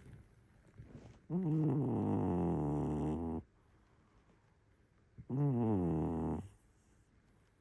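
A domestic cat snoring in its sleep: two drawn-out snores, the first about two seconds long, the second about a second, each starting higher and dropping in pitch.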